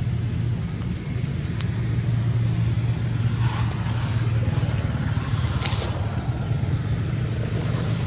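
A steady low engine drone, like a motor vehicle running nearby, with a few faint clicks and two brief hisses.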